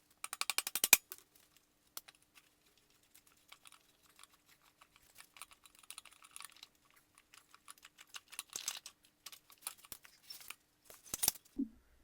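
Hand tools clicking and tapping on motorcycle parts during a teardown: a quick run of rapid clicks in the first second, then scattered light clicks and taps, over a faint steady hum.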